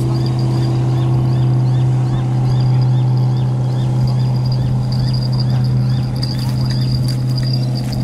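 Motorboat engine running with a steady low drone as the boat passes on the river. High chirps repeat about twice a second through the first half.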